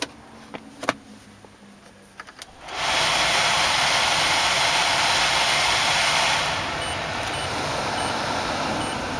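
A few clicks from the climate-control knobs and buttons, then the Mazda RX-8's ventilation blower fan switches on with a loud, steady rush of air. A little past halfway it steps down to a lower setting. Faint regular beeps sound over it.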